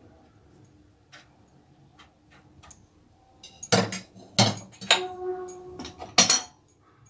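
Metal spoon knocking against steel cookware while hot sugar syrup is spooned out: a few faint taps, then four sharp clinks in the second half, one leaving a ringing tone for about a second.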